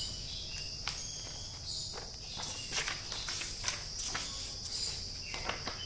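Pages of a thick paperback book being flipped through by hand: a run of quick paper flaps and rustles, thickest in the middle and again near the end, over steady high-pitched chirping in the background.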